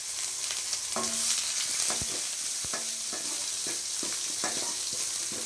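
Chopped onion and curry leaves sizzling in hot oil with mustard seeds and fenugreek in a metal kadai, the tempering stage of a tamarind curry. A spoon stirs and scrapes against the pan in short, irregular strokes over the steady hiss.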